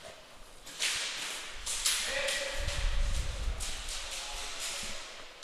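Airsoft gunfire: a few sharp cracks about one and two seconds in. Low thudding from movement comes midway.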